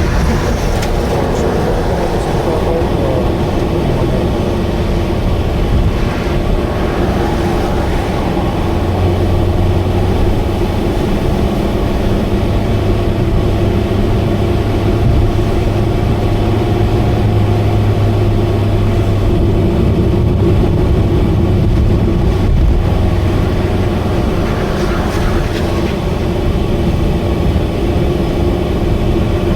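Subaru Vivio's 660 cc four-cylinder engine and exhaust at steady expressway speed, a loud continuous drone from a leaking exhaust. A deep hum swells for about ten seconds in the middle.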